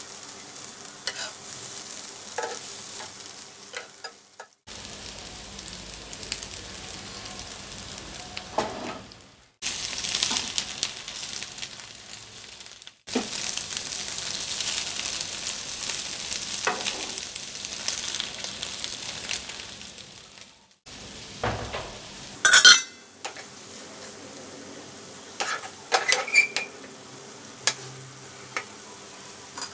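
Egg sizzling in an oiled frying pan while a spatula stirs, scrapes and taps against the pan, heard in several short takes that cut off abruptly. A loud clatter about two-thirds of the way through.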